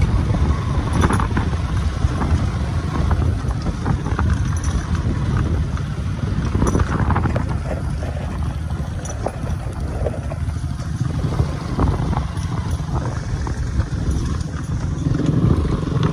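Motorcycle riding along a rough dirt track, heard from on the bike: a steady low rumble of engine and road noise, with scattered short knocks and rattles from the bumps.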